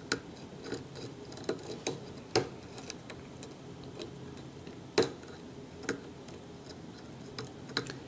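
Lock picking: a pick and tension wrench working the pins of a pin-tumbler challenge lock, making irregular light metallic clicks and ticks, with a few sharper clicks as pins bind and set.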